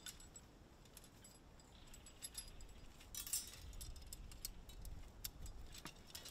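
Faint metallic clinks and rattles from a Bridger 280 conibear body-grip trap as its second steel spring is squeezed with a setting tool and the safety hooked on. The clicks are scattered, with a short flurry about three seconds in.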